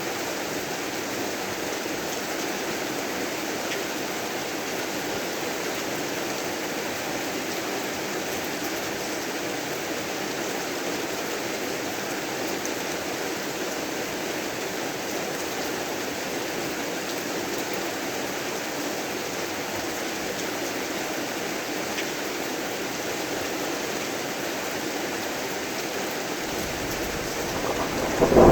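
Heavy rain falling steadily, with a thunderclap rumbling up in the last couple of seconds and breaking loudly at the very end.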